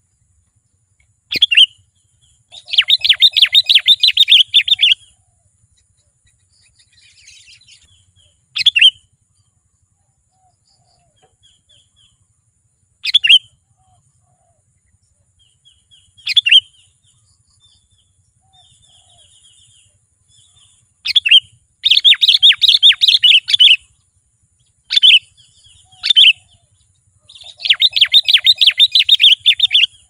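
Sooty-headed bulbul (kutilang) singing energetically: short sharp whistled notes every few seconds, broken by three rapid chattering bursts of about two seconds each, with fainter calls in between.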